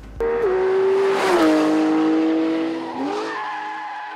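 Car sound effect: a steady engine note that drops in pitch twice, with a rush of tyre screech about a second in. It rises briefly near the end and fades away.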